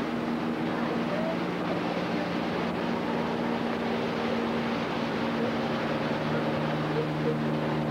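Single-engine propeller plane towing a banner, its engine droning steadily overhead; the engine note drops a little about six seconds in as it passes. A steady hiss of surf and wind lies underneath.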